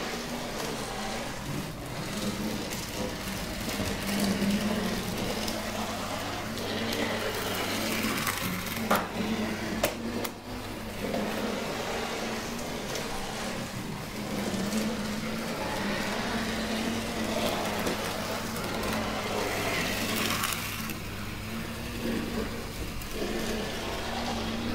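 00 gauge model locomotive's small electric motor running steadily as the train travels around the layout, with a steady low hum underneath. Two sharp clicks come about nine and ten seconds in.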